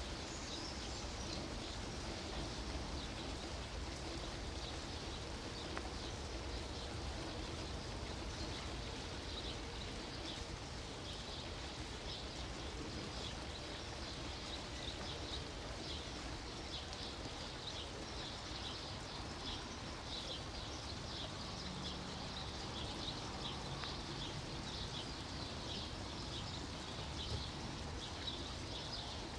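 Small birds chirping over and over, thickest in the second half, over a steady low background rumble.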